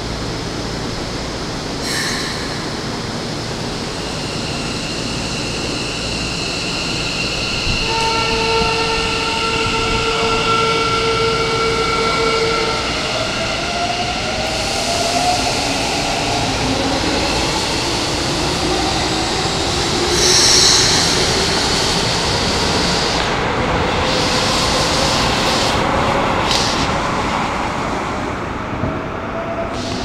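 Keikyu 1000 series electric train pulling out of the station: a steady tone, then the traction motors' whine rising slowly in pitch as it gathers speed. Wheels clatter as the cars pass, and a brief loud high-pitched sound comes about twenty seconds in.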